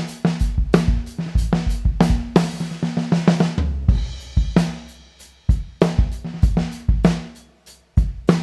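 Drum kit played in a steady groove, showcasing a 1970s Ludwig Supraphonic 14x5 snare drum with its aluminium shell, alongside bass drum and cymbals. About two seconds in, a busy fill ends in a ringing cymbal crash with the bass drum near the middle, then the groove resumes.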